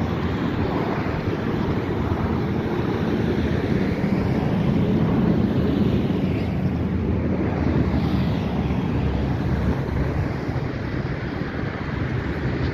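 Wind buffeting the microphone, a steady low rumbling noise.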